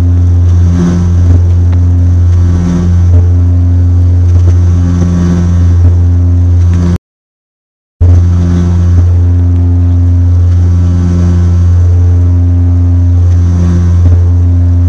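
Antonov An-26's twin turboprop engines at takeoff power in the initial climb, heard inside the cockpit: a loud, steady low drone with a slow, uneven throb from the two propellers beating against each other. About seven seconds in, the sound cuts out completely for about a second, then resumes unchanged.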